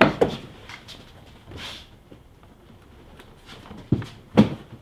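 Plastic body panels of a Ski-Doo Gen 5 snowmobile being worked off their clips: a few scattered clicks and knocks with a short scrape, and a sharper knock near the end.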